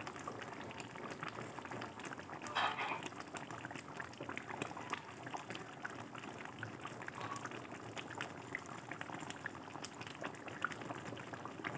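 Thick chilli sauce bubbling and popping with small crackles as chicken pieces simmer in a wok on a gas burner, with a brief louder noise about two and a half seconds in.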